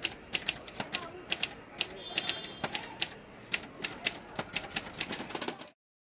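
Manual typewriter being typed on: keys striking in quick, irregular clicks, several a second, that cut off abruptly near the end.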